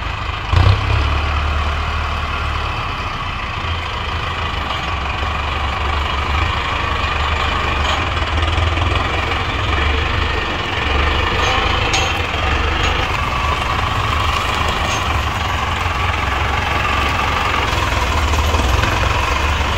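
Mahindra Arjun tractor's diesel engine running steadily close by, with a sharp knock about half a second in.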